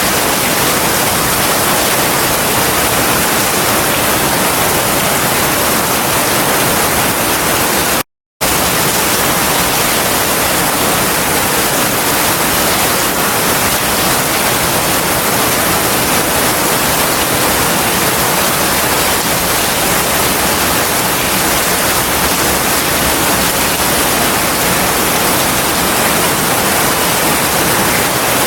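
Heavy rain falling steadily, a dense even hiss with no thunder, cutting out completely for a split second about eight seconds in.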